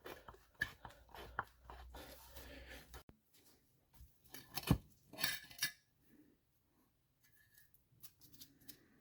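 Scattered metallic clicks and clinks of hand tools and engine parts being handled while a moped engine case is taken apart, with a sharper knock about halfway through.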